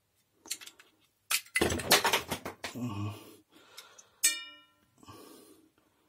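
Clatter of vacuum-cleaner motor parts being handled and set down on a workbench, plastic and metal housings knocking together. About four seconds in, a metal part is struck once and rings briefly with a clear pitched tone.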